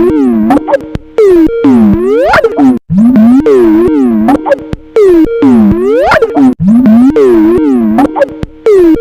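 Skype ringtone warped far out of shape, very loud: its notes swoop down and back up in pitch in a repeating pattern about every two seconds, with brief drop-outs between some repeats.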